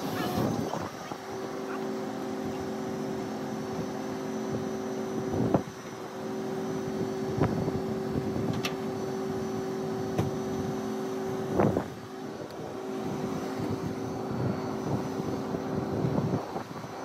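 Flatbed tow truck's winch and engine running with a steady hum that breaks off briefly twice, with a few sharp knocks and clanks.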